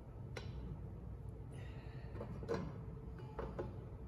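Light knocks and clinks of metal charge-pipe sections being handled and test-fitted together by hand: a few separate taps, one about half a second in and the rest in the second half, over a low steady hum.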